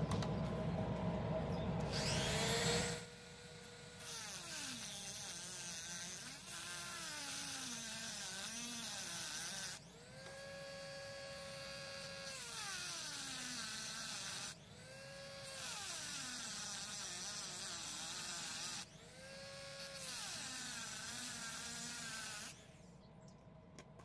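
Dremel rotary tool with an abrasive cut-off wheel spinning up about two seconds in, then whining as the wheel cuts into the steel plier jaws of a multitool. The pitch sags each time the wheel is pressed into the metal and climbs back when it eases off, again and again, until the tool stops near the end.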